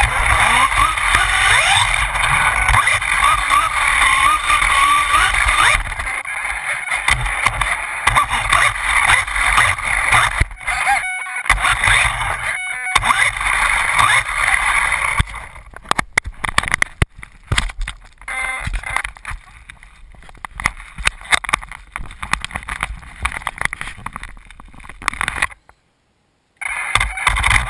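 Losi Mini 8ight 1/16-scale electric RC buggy running hard indoors: its motor whine rises and falls with the throttle over a noisy rush of drivetrain and tyres, followed by many sharp clattering knocks and rattles. The sound cuts out briefly near the end.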